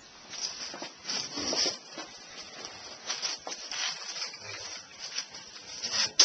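Rustling and shuffling of clothing and people close to the microphone, in irregular bursts, with two sharp knocks right at the end.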